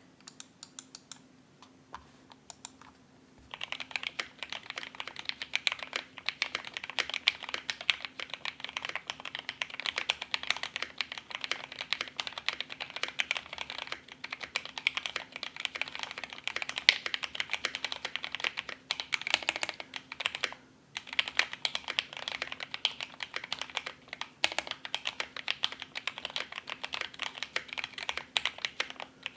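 Typing on a Barleycorn Mini-1800 mechanical keyboard with JWK Mauve linear switches, lubed with 205g0 and filmed, under PBT keycaps. A few single keystrokes come first, then about three and a half seconds in it breaks into fast continuous typing, with short pauses about 20 and 24 seconds in.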